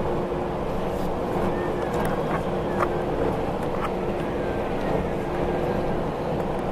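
Airbus A320's CFM56 jet engines running steadily, a constant hum over an even rushing noise, with a few light clicks and rattles.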